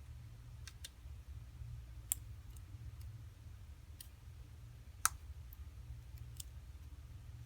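Scattered small, sharp clicks and taps of tools and small parts on an iPhone 4S being reassembled, with two louder clicks about two and five seconds in, over a low steady hum.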